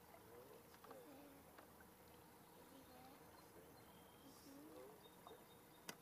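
Near silence, with a few faint wavering calls now and then and one sharp click just before the end.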